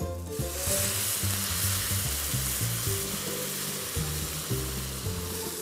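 Boiling chicken stock poured into a hot pan of toasting rice, hissing and sizzling as it hits the pan. The sizzle starts suddenly just under half a second in and slowly eases. Background music plays underneath.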